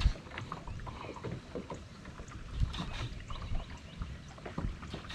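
Small waves lapping and knocking against a fishing boat's hull, with scattered light clicks and taps at irregular intervals over a low steady rumble.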